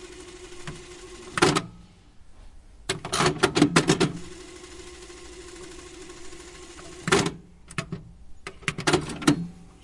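Old reel-to-reel tape recorder running with a steady motor hum, broken by loud mechanical clunks and clicks of its controls. The hum stops after a clunk about a second and a half in, returns with a rapid run of clicks around three seconds, stops again with a clunk near seven seconds, and more clicks follow near the end.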